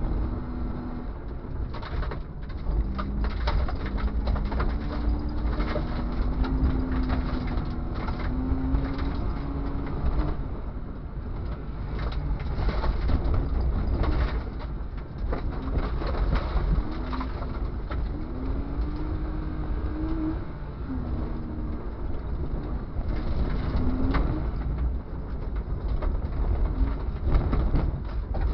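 BMW 325i's straight-six engine revving through the gears, its pitch climbing steadily and dropping back several times as the car is driven hard on gravel. Under it a heavy rumble of tyres and road noise, with frequent knocks and rattles from the rough surface.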